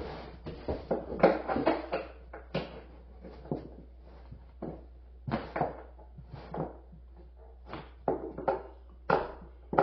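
Irregular knocks and clunks of pressed-board shelf panels and parts being handled and fitted, about two a second.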